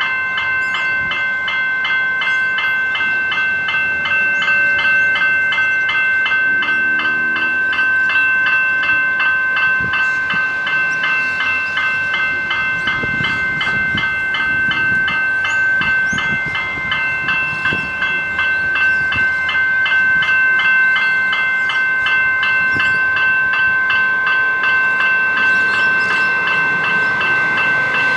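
General Signals Type 1 electronic level-crossing bells ringing steadily in fast, even strokes, the warning that the crossing is active and a train is approaching.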